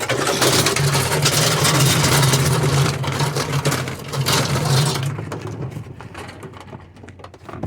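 A motor vehicle's engine running, loud with a steady low hum for about five seconds and then fading away.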